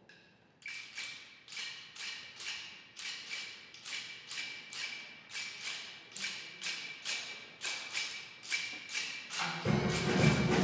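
A steel band's percussion plays a steady, metallic tapping beat of about three strikes a second, growing louder. About a second before the end, the full band of steel pans comes in.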